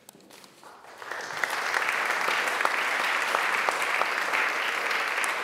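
Audience applauding: many hands clapping, building up about a second in and then holding steady.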